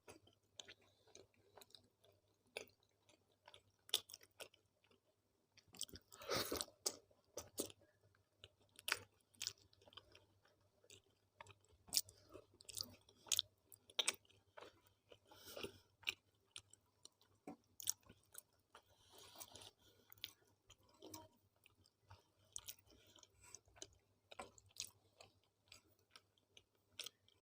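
Close-miked mouth sounds of a person eating roti with dal and potato-fenugreek sabzi: wet chewing and smacking with irregular sharp clicks, and a louder burst about six seconds in.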